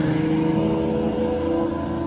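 Naturally aspirated supercar engine running at a steady pitch and slowly fading, as the car pulls away.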